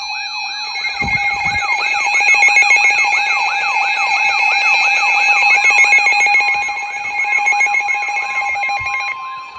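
Electronic emergency alert tones from weather-alert receivers sounding together: a siren-like sweep repeating about three times a second over steady high alert tones. The steady tones cut off near the end, and another steady tone comes in about two-thirds of the way through.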